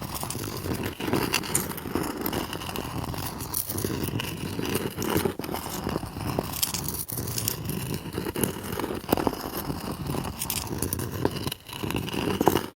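A small rock scraping and dragging across stone: a continuous gritty grinding with crackly ticks, broken by a few short pauses. It stops abruptly near the end.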